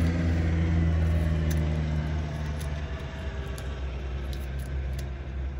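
A vehicle engine running nearby, a steady low rumble that slowly fades away, with a few light clicks.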